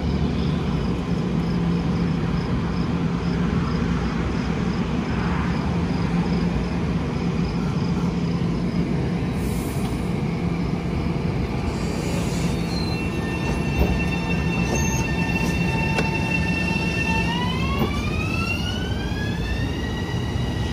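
Long Island Rail Road commuter train running with a steady low rumble. From about 12 seconds in a high whine sets in, and from about 17 seconds it rises in pitch as the train accelerates, then levels off.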